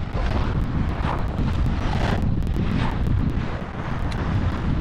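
Wind buffeting the action camera's microphone as it moves: a loud, steady low rumble with a hiss that swells about once a second.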